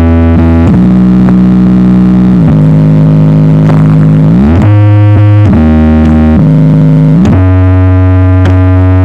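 Very loud sound-check music played through a large speaker system: sustained synthesizer notes that glide up and down between pitches over heavy bass, with sharp clicks now and then.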